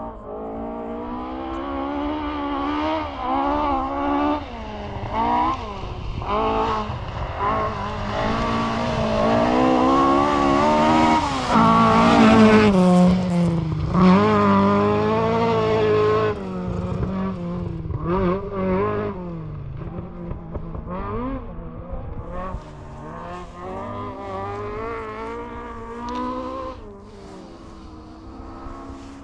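Rally car engine revving hard up and down through repeated gear changes on a stage. It grows steadily louder to a peak about halfway through, then fades away.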